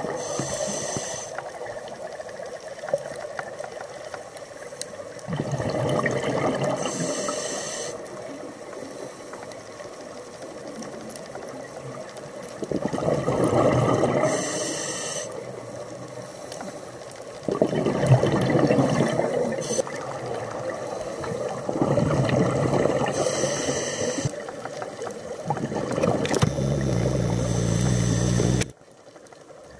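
Scuba diver breathing through a regulator underwater: a short hiss on each inhale and a longer gurgle of exhaled bubbles, repeating every few seconds. The sound cuts off abruptly near the end.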